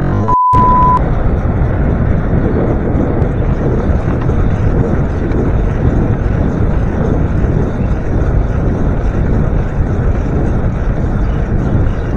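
Wind rushing over the microphone with tyres rolling on a paved road as a bicycle is ridden steadily. A short, steady high beep sounds just after the start.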